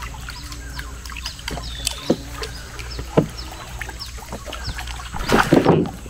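Water sloshing around a small boat on a swamp stream, with short high chirps throughout. A loud splash comes about five seconds in, as a big fish strikes at the surface.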